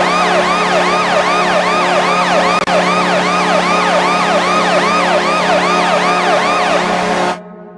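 Hockey goal horn: a steady low tone under a siren wail that sweeps up and down about two and a half times a second. It cuts off sharply about seven seconds in and rings out.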